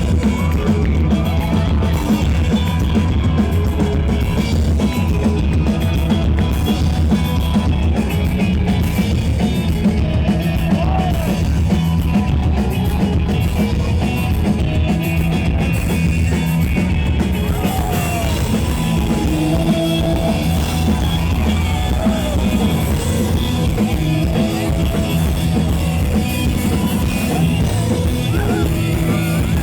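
Live rock band playing loud and steady, with a driving drum kit and heavy low end; it kicks in suddenly right at the start.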